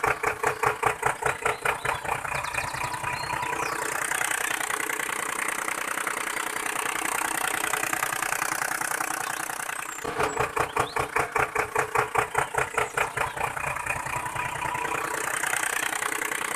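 Tractor engine chugging at about three beats a second, easing into a steadier drone for several seconds in the middle and again near the end.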